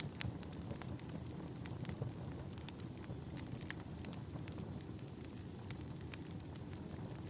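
Wood fire burning in a fireplace: a steady low rumble with irregular sharp crackles and pops.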